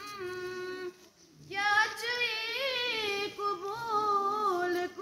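A schoolgirl singing an Urdu nazm solo, with no instruments: a long held note, a short breath about a second in, then a new phrase with wavering, ornamented pitch.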